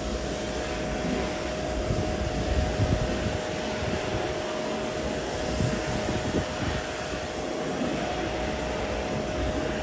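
Steady drone of machinery running: a constant hum over a rushing noise, with uneven low rumbles that are loudest around three seconds in.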